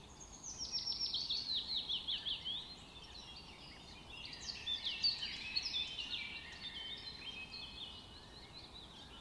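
Songbirds singing: a fast series of quick falling chirps in the first couple of seconds, then a busier mix of short whistled notes, over a faint hiss.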